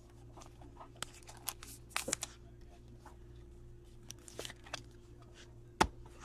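Trading cards and clear plastic card holders being handled: scattered small clicks and rustles, with one sharper click near the end, over a faint steady hum.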